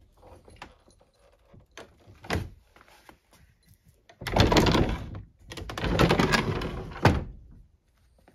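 A few light knocks and a thump about two seconds in, then an old wooden door rattling and knocking in its frame in two long stretches, the second longer.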